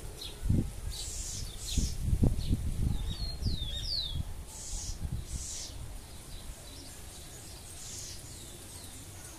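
House wren singing: repeated bursts of high chirps, with a few clear downward-sliding notes about three to four seconds in. Low rumbling on the microphone in the first few seconds.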